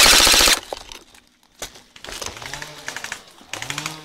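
Airsoft gun firing a short full-auto burst of about half a second, close by and very loud, right at the start. It is followed by quieter scattered clicks.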